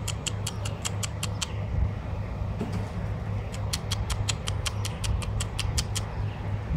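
A person calling cats with rapid squeaky lip-kissing clicks, about five or six a second. The clicks stop about a second and a half in and start again about two seconds later. A steady low hum runs underneath.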